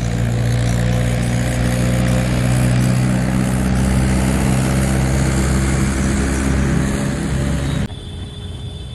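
A steady engine running with a low, even hum. It stops abruptly about eight seconds in.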